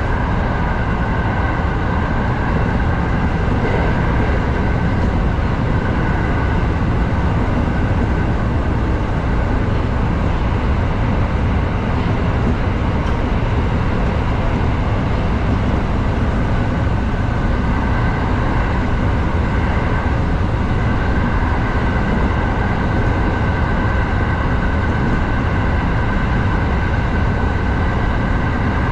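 Kintetsu 7000 series third-rail train running steadily at speed through a tunnel, heard from inside the driver's cab. A constant rumble of wheels on rail carries a faint steady high tone.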